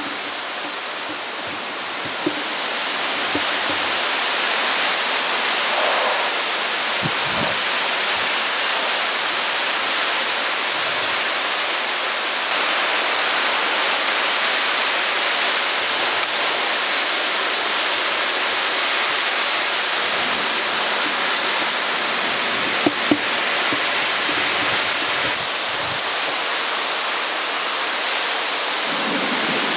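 Steady, loud hiss of heavy thunderstorm rain falling, with a couple of brief clicks about three-quarters of the way through.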